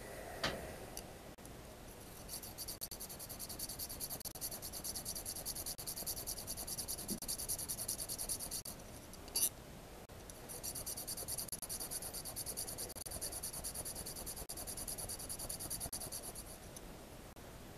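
Hand file rasping on metal in fast, even strokes, in two long spells with a sharp click between them about halfway through.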